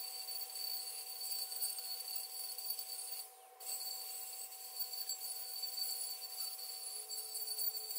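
Angle grinder grinding the rough torch-cut steel edge of a wheel rim's centre hole, a steady whine with grinding hiss that drops away briefly about three seconds in.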